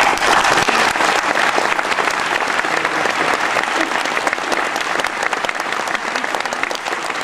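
Audience applauding: dense clapping that sets in abruptly, loudest in the first second and easing slightly toward the end.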